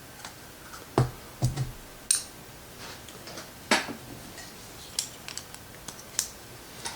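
Scattered clicks and light knocks of small hard objects being handled and set down on a work surface, about half a dozen over several seconds, with no spray hiss yet.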